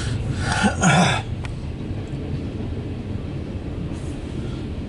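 Freight train of covered hopper cars rolling past: a steady low rumble of wheels on rail, with a brief louder rush of noise about a second in.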